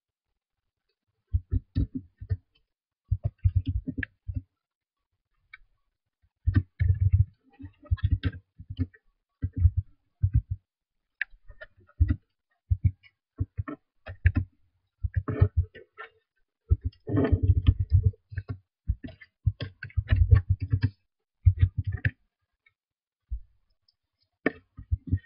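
Computer keyboard typing: keystrokes clicking in short quick runs, with pauses of up to about a second between runs.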